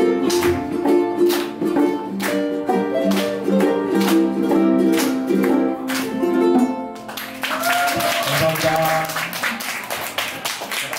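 Ensemble of ukuleles strumming the last bars of a song, with its final chord about seven seconds in. Audience applause and a few voices follow.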